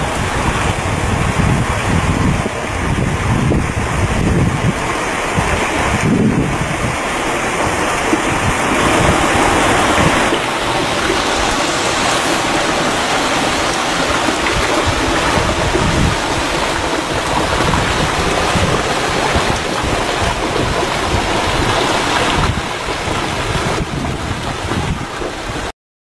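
Small waterfall splashing down a rock face: a loud, steady rush of water, with wind buffeting the microphone in the first half. It cuts off suddenly near the end.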